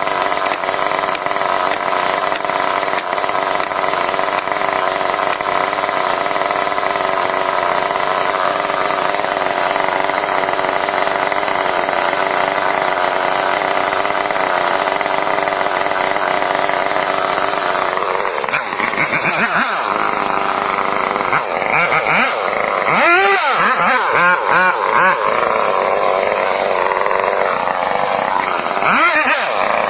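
Chainsaw engine running at a steady pitch. From about two-thirds of the way in, its pitch starts dropping and rising again in repeated swoops.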